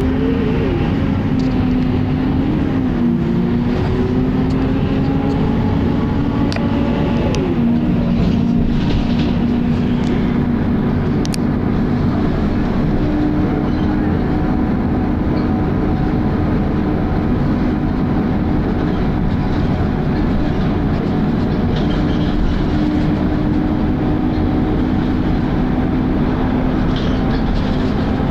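Volvo B10BLE bus running, with a loud whine over the engine rumble that is typical of this bus's very loud cooling fan. The whine rises in pitch over the first second, then holds steady, dipping and recovering briefly about seven seconds in.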